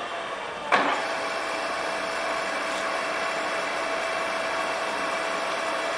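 Mitsubishi radial drilling machine's spindle head: a whine falls in pitch and fades, then a sharp clunk comes under a second in. After that the machine runs on with a steady whine.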